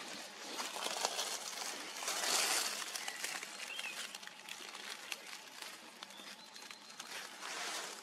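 Woodland ambience: a steady rustling, crackling hiss with many small ticks, swelling about two seconds in, and faint bird calls.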